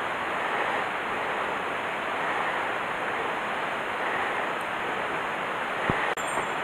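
Steady rushing of a mountain stream's water over rocks, with one soft knock near the end.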